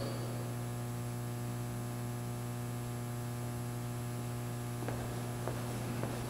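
Steady electrical mains hum, low-pitched and continuous, with a few faint clicks near the end.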